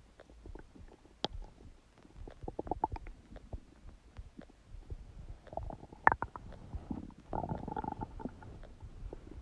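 Human stomach gurgling: irregular small pops and bubbling, with a sharp pop about six seconds in and a longer, drawn-out gurgle just after it.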